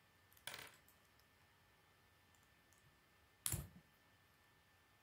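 K'nex plastic pieces being fitted together by hand: a short rattle of clicks about half a second in, then a single louder snap about three and a half seconds in.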